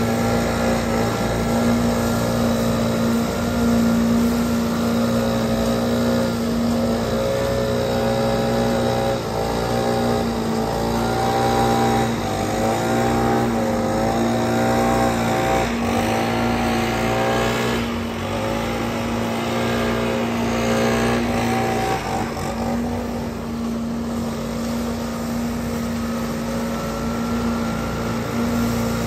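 Trailer-mounted leaf vacuum running steadily with a constant engine hum while it sucks up leaves through its hose, together with a gas backpack leaf blower whose engine pitch rises and falls as its throttle is worked, mostly in the middle stretch.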